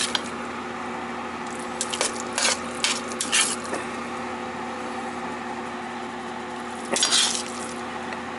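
A metal spoon stirring and turning thick cauliflower mash in a stainless steel pot, with short wet squishing scrapes in several bursts: around two to three seconds in and again about seven seconds in. A steady low hum runs underneath.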